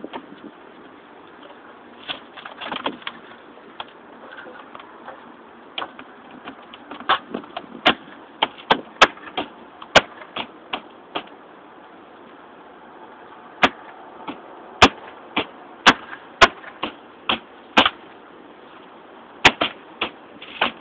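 Plastic louvered wall vent being pressed and worked into place by hand. It gives an irregular series of sharp clicks and knocks, mostly in the second half, with a brief lull in between.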